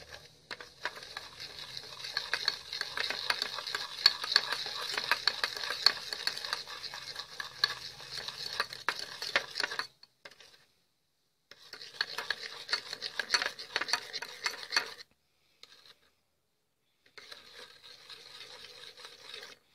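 Metal spoon stirring a gritty baking soda, coconut oil and lemon juice paste in a small bowl, scraping and clicking against the bowl. The stirring comes in three stretches, broken by two short silences about ten and fifteen seconds in.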